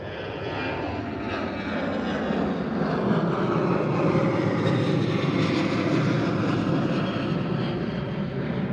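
Airplane flying low overhead: a steady engine rumble that swells over the first few seconds and holds, its pitch dropping as it passes.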